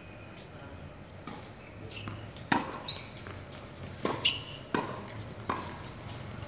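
Tennis ball hit back and forth by rackets and bouncing on a hard court during a doubles rally: a sharp pop about two and a half seconds in, then several more in quick succession about a second or less apart.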